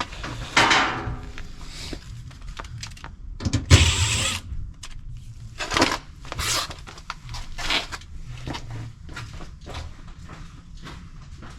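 Gas furnace access panels being handled and taken off: a string of metal clanks, knocks and scrapes, the loudest about four seconds in.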